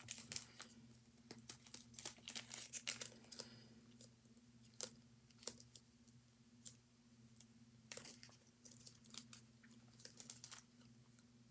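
Plastic zip-top sandwich bag filled with shaving cream being handled, with faint crinkling and clicking as its zip seal is pressed shut.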